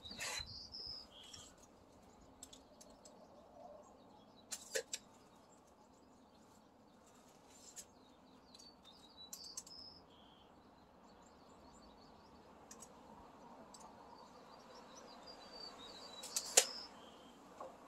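Quiet background with faint bird chirps now and then, broken by a few sharp clicks: a quick pair about five seconds in and a louder single click near the end.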